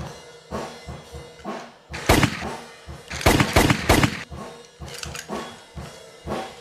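Gunshot sound effects over background music with a drum beat: one shot about two seconds in, then a quick run of three or four shots about a second later.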